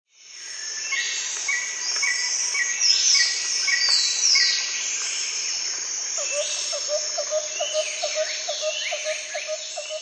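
Several birds calling over a steady high insect drone, fading in at the start. One bird repeats a short high chirp about twice a second while others give falling whistles, and from about six seconds a lower note repeats about four times a second.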